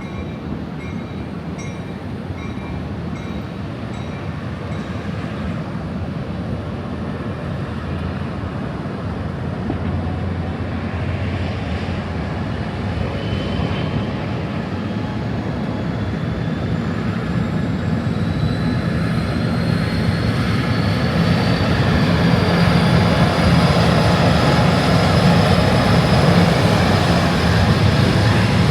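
Train rolling past, a steady rumble that slowly grows louder, with a thin high whine rising in pitch over the second half.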